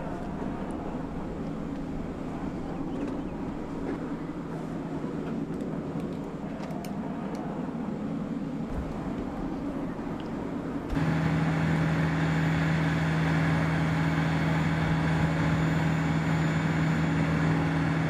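Steady mechanical drone of machinery running on a jet flight line. About eleven seconds in it abruptly gets louder, with a strong steady low hum and a higher whine above it.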